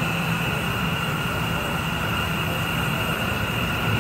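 Gas stove burner running steadily under a pot of tea water, a constant roar with a low hum beneath it.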